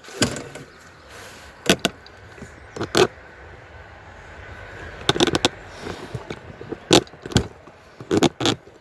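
A string of sharp knocks and clicks, some in close pairs, spread unevenly over several seconds with a faint hiss between them: handling noise of objects being moved and set down.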